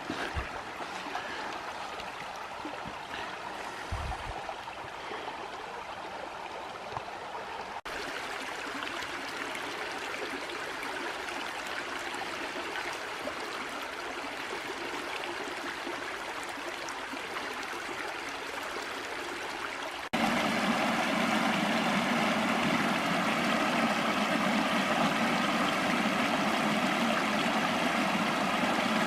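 Running creek water, a steady rush and trickle over small cascades. It changes abruptly twice and is louder and fuller in the last third. A brief low bump comes about four seconds in.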